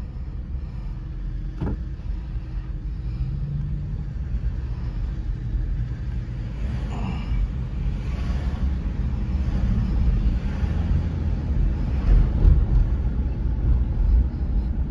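Low, steady rumble inside a car cabin while driving slowly in city traffic: engine and tyre noise, growing a little louder in the second half. There is a brief click a couple of seconds in.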